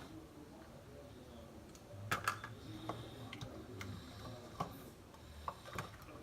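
Slime being mixed and worked by hand, giving irregular small clicks and pops, a few louder ones about two seconds in and again near the middle.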